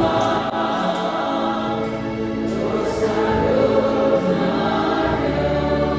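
Church choir singing in parts, holding long chords that move every second or so, with a few crisp 's' consonants between them.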